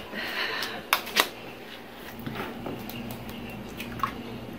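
An egg being cracked against the rim of a small glass: two sharp taps about a second in, then a few faint clicks over a low steady hum.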